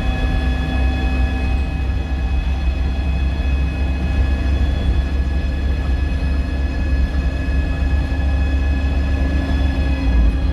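Scania K230UB single-deck bus running at a steady speed, heard from on board: a heavy low engine and road rumble under a steady multi-toned whine from the drivetrain and turbo.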